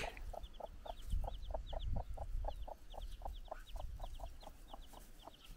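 A broody hen clucking in a quick, steady run of about four clucks a second, with short high peeps from her chick over it: a mother hen keeping in touch with her newly hatched chick.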